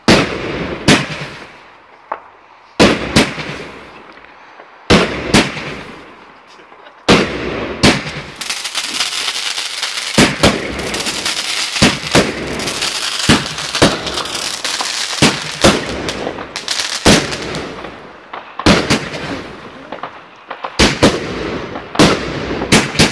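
Aerial fireworks bursting overhead. It opens with a handful of sharp bangs a second or two apart, then about eight seconds in a dense run of rapid pops and hiss for around ten seconds, and then more bangs in quick succession near the end.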